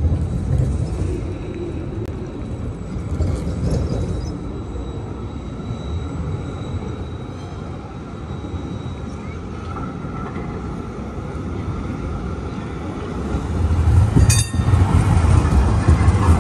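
Trams running on street track, with a steady low rumble. Near the end an older high-floor tram passes close by and the rumble of its wheels and motors grows louder, with one sharp click partway through the pass.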